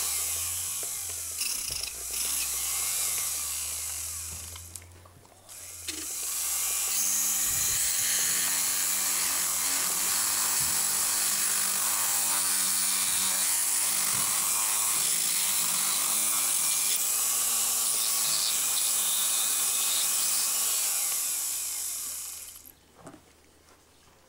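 Motorized equine dental float with a spinning cutting disc, grinding down a horse's incisors. It runs with a high hiss, fades and cuts out for about a second around five seconds in, then runs again and stops near the end.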